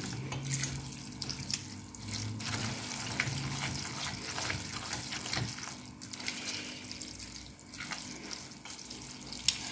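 Wet macaroni being stirred with a spatula in a stainless steel pot, with many small clicks and scrapes: the cheese powder, milk and butter being mixed into the drained pasta.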